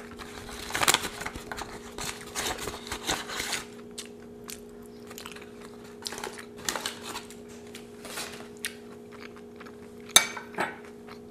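Aluminium foil crinkling as it is handled for the first few seconds, then scattered small clicks and knocks of utensils and dishes on a table, with one sharp clack near the end, over a faint steady hum.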